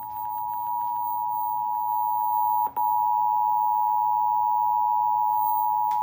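Emergency Alert System attention signal playing from a TV: two steady tones sounded together as one continuous alarm, cut off for an instant about two and a half seconds in. It announces that an emergency alert message follows.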